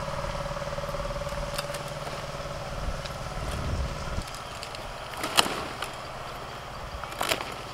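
Steady hum of a tractor engine working the fields, which drops away about four seconds in. Sharp snaps come as a hand sickle cuts through bottle gourd shoots, one about five seconds in and another near the end.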